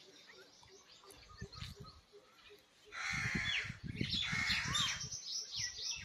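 Several birds chirping and calling, with quick sweeping notes, busiest about three to five seconds in, over a low rumbling thump.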